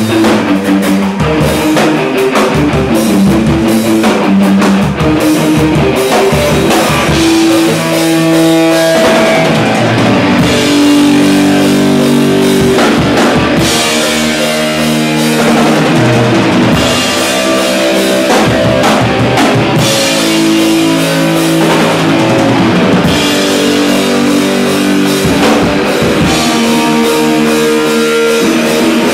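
A drum kit and an electric guitar playing rock music together at full volume, with steady drum and cymbal hits under sustained guitar chords.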